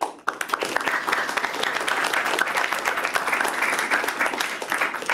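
Audience applauding: a small crowd clapping, starting at once and tailing off near the end.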